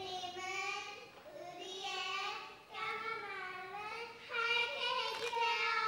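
A young child singing a short unaccompanied melody in several held, slightly wavering phrases.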